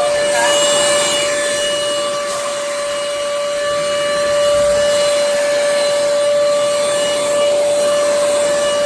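DEENKEE cordless stick vacuum running steadily, its motor giving a constant whine over the rush of suction.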